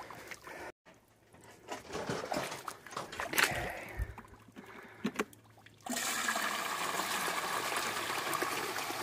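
Water suddenly starts gushing through a Keene Mini Max high banker's hopper and sluice about six seconds in, then runs as a steady rush as the pump feeds it. Before that there are only a few light knocks and splashes.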